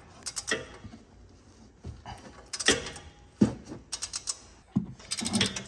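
Ratchet wrench on a 16 mm socket clicking in short runs of rapid clicks, stroke after stroke, as a rear brake caliper bracket bolt is worked loose.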